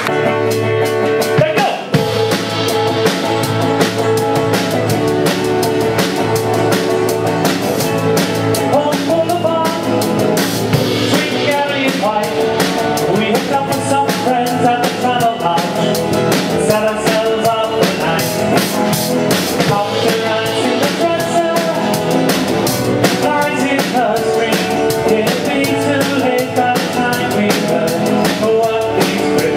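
A live band playing a song: strummed acoustic guitars and other string instruments over a steady, driving beat.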